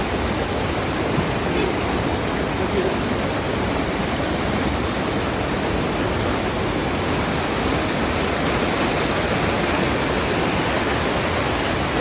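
Rushing water of a mountain stream, a steady, loud, even rush.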